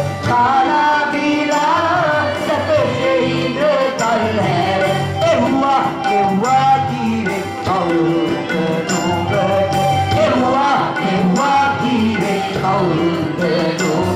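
A Sinhala song sung live into a headset microphone over a backing track with a steady beat, played through the hall's PA.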